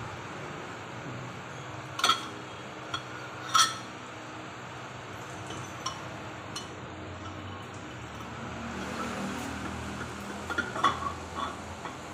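Metal cylinder liners clinking against the cast engine block of an 855 tractor engine as they are handled and set into the bores. There are two sharp clinks about two and three and a half seconds in, a few lighter taps after them, and a quick cluster of clinks near the end, over steady background noise.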